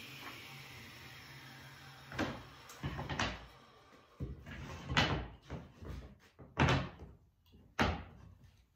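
A table saw winding down, its whine falling and fading over the first couple of seconds. Then about six sharp wooden knocks as cut hardwood strips are set down on a plywood workbench.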